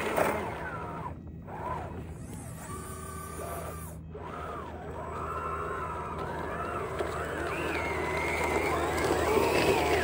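Small electric drive motors and gearboxes of an RC tracked skid steer loader whining, the pitch rising and falling with the throttle, and growing louder toward the end as the machine comes close.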